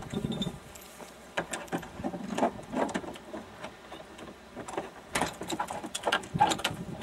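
Rusty steel chain rattling and clinking against a car's sheet-metal door as it is threaded through the door-handle opening, in several short spells of clinks, the loudest near the end.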